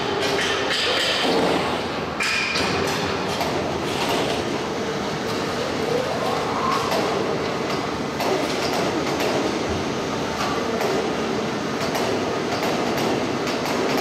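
Heavy household-appliance shredder running with a steady mechanical drone, with frequent metallic clanks and crunches as it works on a refrigerator in its hopper.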